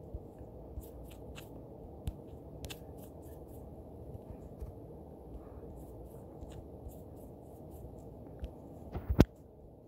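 Light scattered taps and clicks of fingers or a stylus on a phone touchscreen over a low steady room hum, with one louder click about nine seconds in.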